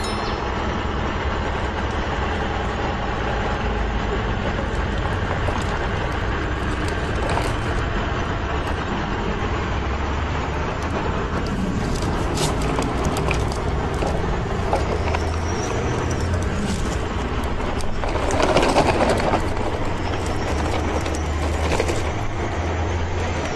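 Steady low rumble of a truck engine, with a louder burst about eighteen seconds in.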